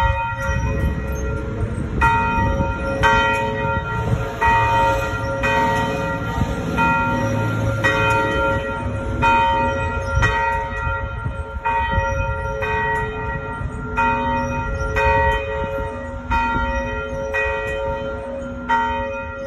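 Church bells ringing a series of strikes, a bit more than one a second, on several different notes, each tone hanging on into the next, over a steady low rumble.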